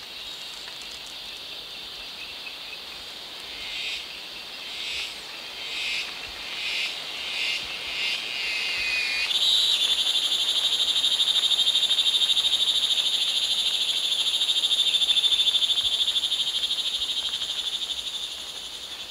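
A high-pitched animal call: a string of pulsing chirps, coming closer together, that about nine seconds in runs into a loud, steady buzzing whine, easing off near the end.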